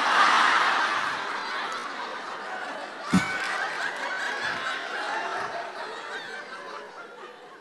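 Large studio audience laughing at a joke, loudest at first and dying away over several seconds.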